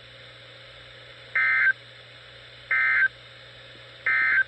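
Emergency Alert System SAME end-of-message data bursts on a weather radio broadcast: three short, identical warbling digital tone bursts about a second and a half apart, closing an alert message.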